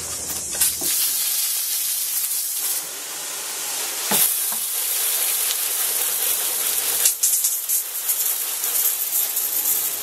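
Garden hose spray nozzle spraying a jet of water onto a burning microwave oven to put out a lithium-polymer battery fire: a steady hiss, with a few short knocks about four and seven seconds in.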